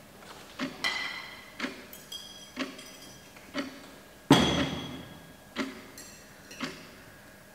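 A clock ticking steadily, about one tick a second, with cutlery and china clinking on a dining table: two light ringing clinks in the first two seconds and a louder clatter a little past the middle.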